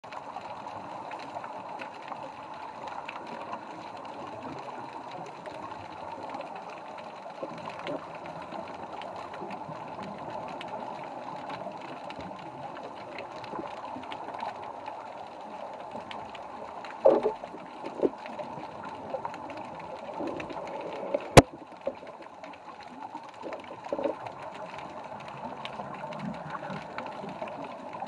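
Underwater ambience picked up by a camera in its housing: a steady hiss with faint crackling. A few louder bubbly bursts come past the middle, and there is one sharp click about three quarters of the way through.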